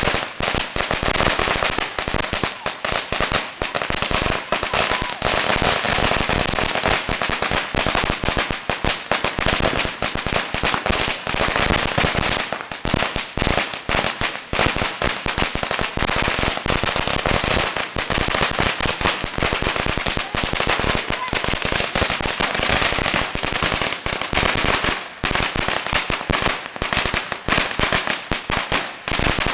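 A 10,000-round firecracker string going off in a continuous, rapid crackle of bangs with no break.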